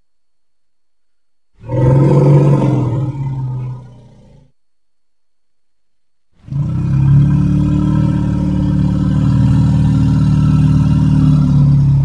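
Steppe mammoth sound effect, the made-up call of an extinct elephant relative: a short low roar about two seconds in that fades away, then after a pause a long, steady low roar starting about six seconds in.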